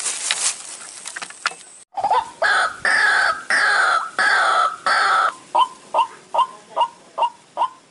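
White-breasted waterhen (ruak-ruak) lure call: after a rustling hiss that cuts off about two seconds in, a run of loud, harsh repeated calls, then short clucking notes at about two or three a second.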